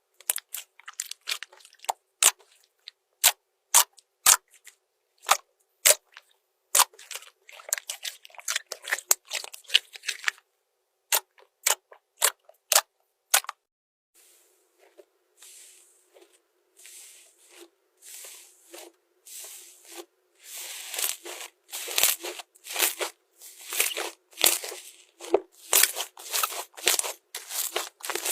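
Slime being poked and squeezed by hand: a run of sharp, separate clicks, then from about halfway a denser, faster stretch of crackling, crunchy squishes.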